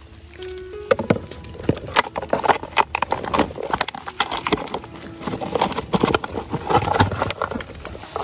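Thin plastic bottle crinkling and crackling as muddy hands handle it and work at its neck, with soil scraping. The quick irregular clicks and crackles start about a second in.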